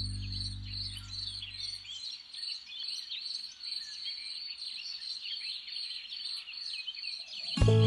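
Many small birds chirping and twittering over a steady, high, pulsing insect trill like crickets. A guitar chord dies away in the first two seconds, and guitar music comes back in loudly near the end.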